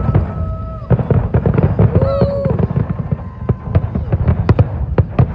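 Fireworks display going off in a dense, rapid barrage: many booms and crackling bangs in quick succession, with heavy low thuds under them.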